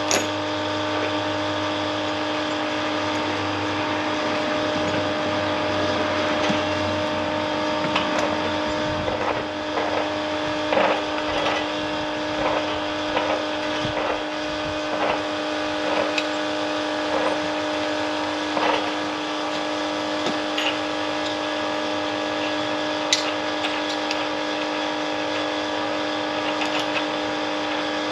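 A small electric motor running with a steady hum, with a run of light taps or clicks in the middle.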